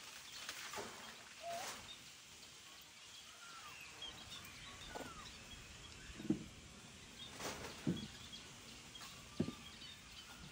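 Faint outdoor background with scattered short, high chirps and a few brief sharp knocks in the second half.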